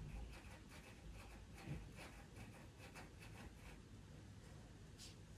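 Faint, light strokes of a pastel pencil scratching on pastel paper, short and even at about three or four a second, stopping about two-thirds of the way through. A single sharp tick comes near the end.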